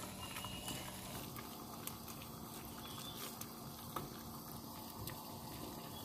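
Bamboo-shoot curry simmering and bubbling in a pan while a wooden spatula stirs it, with scattered soft ticks and a couple of sharper knocks, one about four seconds in.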